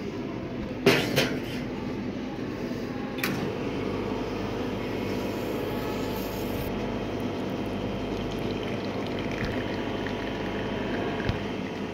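Commercial espresso machine: the portafilter clunks twice as it is seated and locked into the group head. After a click a little after 3 s, the brew pump runs with a steady hum while a shot of espresso pours into the cup.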